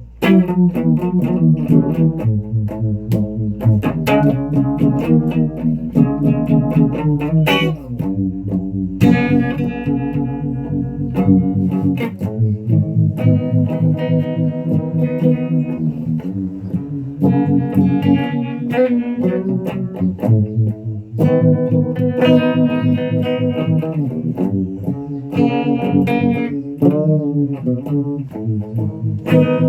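Guitar music with a bass line: plucked notes changing continuously, with some effects on the guitar.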